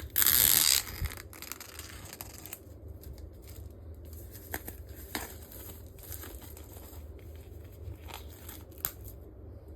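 Plastic shrink-wrap on a vinyl record sleeve being torn open: one loud rip in the first second, then quieter crinkling and small ticks as the plastic is peeled off.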